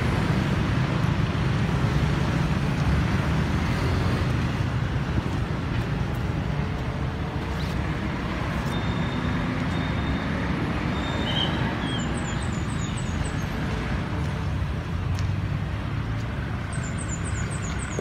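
Steady road traffic noise, with a bird's quick run of high chirps heard twice in the last seconds.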